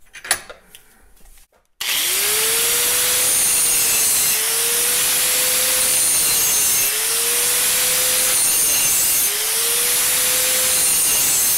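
A sharp knock, then about two seconds in a handheld angle grinder starts and grinds the steel rail of a chainsaw bar at an angle, to mimic a worn bar. It runs loud and steady, its motor pitch sagging and climbing back every two to three seconds.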